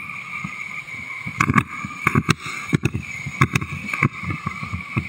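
Whitewater rapids rushing around an inflatable raft, with irregular knocks and splashes from paddle strokes and waves slapping the raft's tubes.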